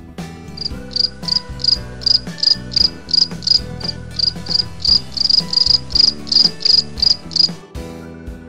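Cricket chirping, a rapid high chirp repeated about three times a second, over background music. The chirping starts just after the beginning and stops about a second before the end.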